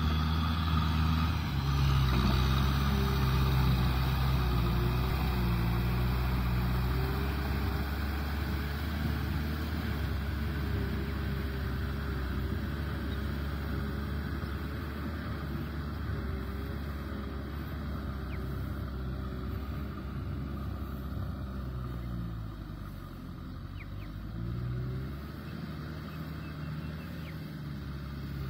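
Kubota M6040SU tractor's four-cylinder diesel engine running steadily under load as it drives a rotavator through wet mud. It is loudest at first and grows fainter as the tractor moves away. A little past three-quarters of the way through, the engine note dips briefly and then comes back up.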